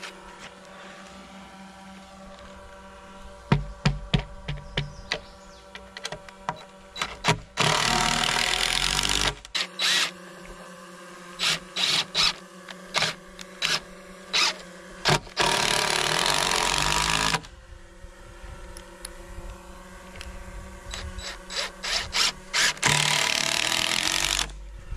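Cordless driver driving long screws into a timber post and beam, in several runs of a couple of seconds each, with short quick bursts between them.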